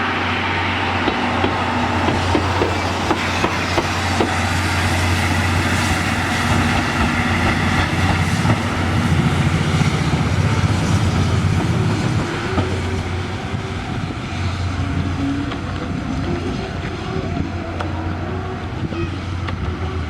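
Train rolling past, its wheels clattering over rail joints above a steady low hum. It grows louder about eight seconds in, then eases off after about twelve seconds.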